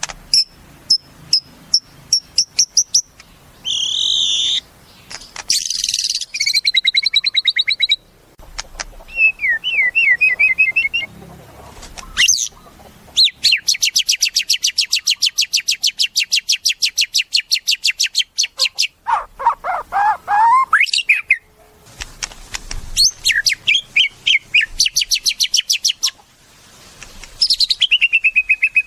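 White-rumped shama (murai batu) singing a varied song of short whistled phrases and pitch glides, with a long, fast, rattling trill from about 13 to 19 seconds in and more trills near the end.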